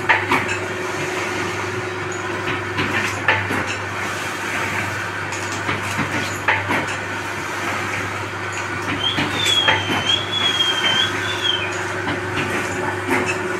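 Belt-driven paper plate making machine running: a steady motor hum, with a knock from the die press about every three seconds as it forms foil-laminated paper plates. A thin, high, wavering squeal is heard for a couple of seconds about two-thirds of the way through.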